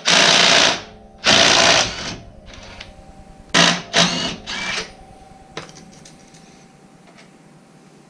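Cordless DeWalt impact gun hammering out the 17 mm brake-caliper bolts: two long bursts in the first two seconds, then three short bursts around four seconds in.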